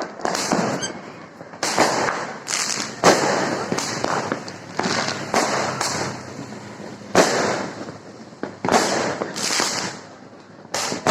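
Aerial fireworks bursting one after another, each bang trailing off into crackle and hiss, about ten bursts over the stretch with short lulls between them.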